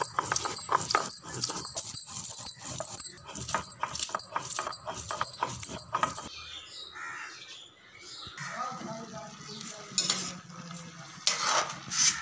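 Stone roller worked back and forth over a flat grinding stone (sil-batta), grinding chillies and garlic into a wet paste: a quick, even run of gritty rubbing strokes, several a second. After about six seconds it stops, and quieter scraping follows, then a few sharp metal clinks near the end.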